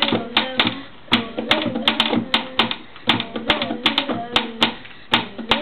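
A drumming beat tapped on a school desk with hands and a pencil: quick, sharp taps several times a second. Over it a child's voice carries a wordless tune that rises and falls in repeating phrases.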